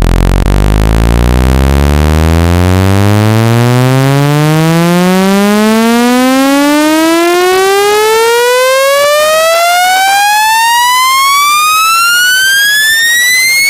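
Electronic test tone sweeping steadily upward in pitch, from a low hum to a high whine, buzzy with many overtones. It is a speaker-cleaning tone, played to shake water and dust out of a phone's speaker.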